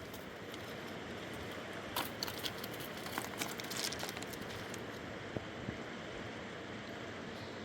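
Steady rushing of a fast river, with a cluster of light clicks and rattles about two to four seconds in.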